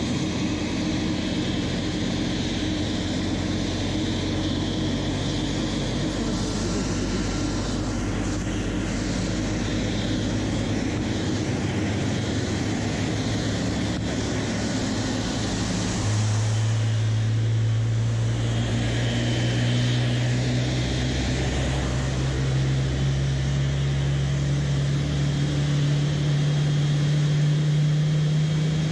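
Boeing 777-300ER's GE90 jet engines running at ground idle, a steady rush with low humming tones. About halfway through, a strong low drone starts and climbs slowly in pitch.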